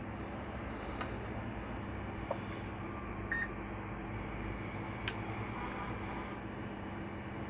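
A few faint clicks and a short, high multimeter continuity beep a little over three seconds in, as a laptop motherboard's components are probed for a short, over a steady low hum.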